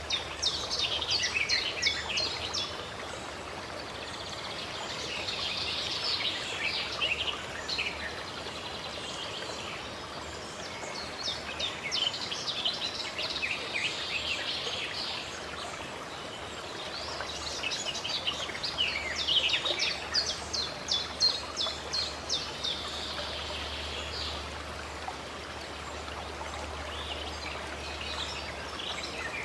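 Steady running water, with songbirds singing over it in four bursts of rapid high chirps and trills, the longest and loudest near the end.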